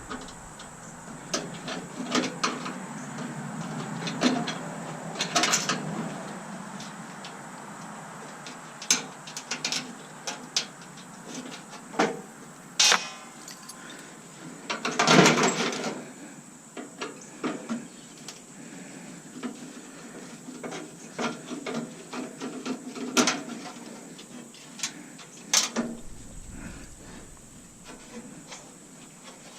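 Scattered clicks, knocks and scrapes of hand tools and metal parts being worked while a stainless steel coffee maker is taken apart, with a longer scraping rattle about halfway through.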